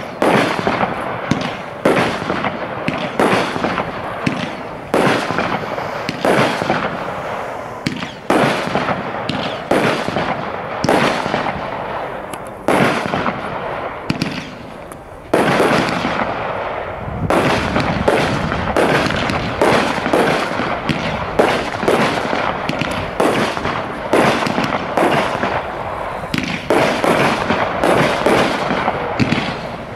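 Brothers Pyrotechnics Hercules single-ignition firework cake firing a long string of shots, about one to two sharp bangs a second, each with a fading tail, and a short lull about halfway through.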